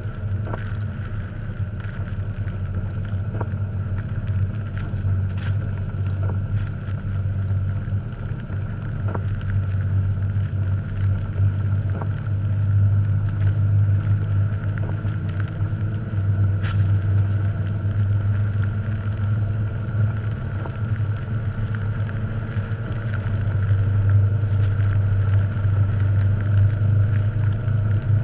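1989 Jeep Cherokee XJ's engine running steadily under load as the Jeep churns through deep snow, swelling louder a couple of times, with scattered light clicks.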